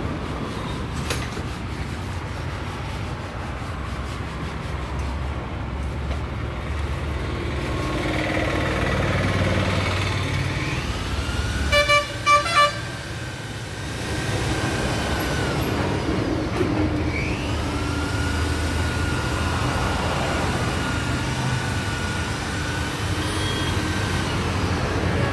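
Handheld electric rotary polisher running, its motor whine rising in pitch as it speeds up and then holding steady for several seconds. A vehicle horn gives three quick toots near the middle, the loudest sound.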